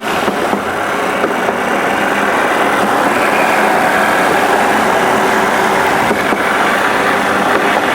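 Small 125 cc motorbike engine running steadily, driving a wooden moto rail trolley along a railway track, with a steady rush of noise.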